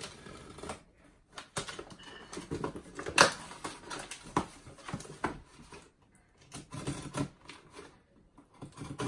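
Scissors cutting and scraping through heavy packing tape on a cardboard box: a run of irregular scrapes and clicks, with a sharp knock about three seconds in and two short pauses later on.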